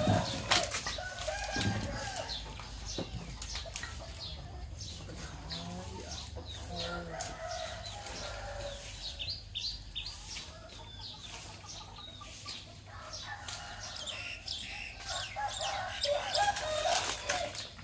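A chicken's wings flapping loudly in the first couple of seconds as it flies up from a fence post into a tree, then roosters crowing, once in the middle and again near the end, with clucking and small birds chirping throughout.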